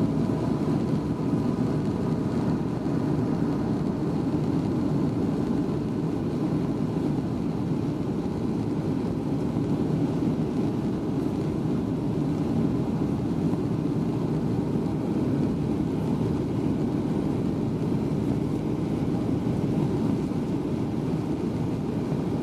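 Steady cabin noise of a Boeing 737-800: the CFM56-7B jet engines and rushing airflow heard from inside the passenger cabin, a constant low roar with faint engine tones that fade in the first couple of seconds.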